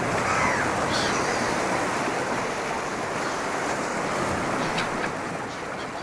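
Steady rush of sea surf, slowly dying away toward the end, with a few faint clicks.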